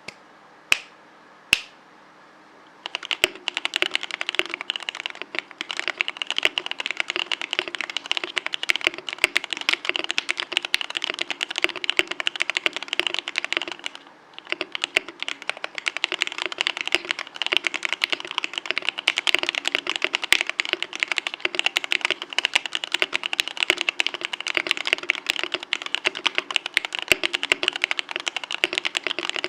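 Frog TKL mechanical keyboard with an aluminium plate, lubed TTC Wild 52 g linear switches, Durock stabilizers and XMI keycaps being typed on. Two single key presses, then fast continuous typing from about three seconds in, with a short pause about halfway through.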